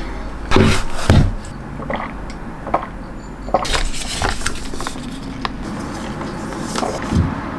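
Scattered clicks and knocks of small household objects being handled, with a couple of heavier thumps about half a second to a second in, over a low steady room hum.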